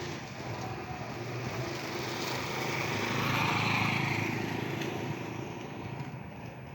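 A motor vehicle with a small engine passes by. Its engine hum and road noise swell to a peak around the middle and fade away.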